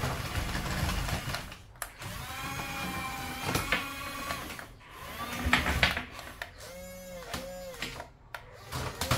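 Radio-controlled toy excavator's small electric motors whining in short runs as the boom and bucket move, the pitch rising and falling with each movement. Plastic clicks and a knock come in between, the loudest a little past the middle.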